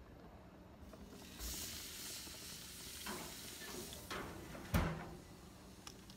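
Sous-vide brisket sizzling as it is laid on the hot grates of a gas grill, a hiss that starts about a second in. A few metal knocks follow as the grill lid is shut, with a heavier thump about five seconds in.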